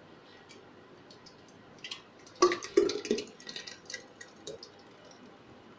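Thick blended watermelon smoothie poured from a blender jar into a glass pitcher: scattered clicks and plops, with two louder knocks about two and a half seconds in.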